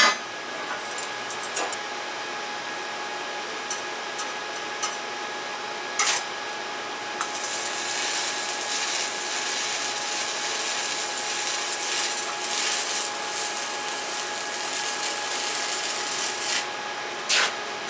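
Stick-welding arc on thin 1.6 mm exhaust pipe, run with a small rod at 35 amps. A few short crackles come first, then the arc crackles and hisses steadily for about nine seconds and stops near the end. A steady hum runs underneath.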